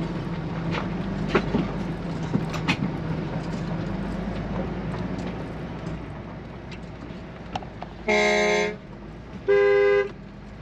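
Two short vehicle horn honks near the end, the first about 8 seconds in and the second about a second and a half later, loud over the steady engine and road hum of a moving motorhome with small cabin rattles.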